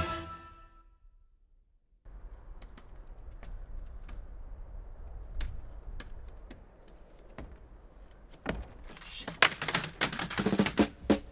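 Footsteps of a person coming down an outdoor stairway over a low steady hum: scattered clicks and taps, turning about nine seconds in into a quick, louder run of sharp clicks and knocks. Music dies away in the first second.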